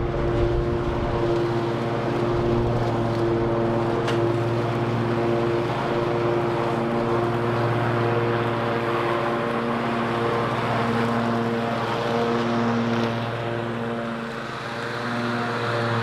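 Toro TimeCutter MyRide 54-inch zero-turn mower's engine and cutting-deck blades running while it mows field grass: a steady drone with a low hum and a few even tones above it, dipping briefly near the end.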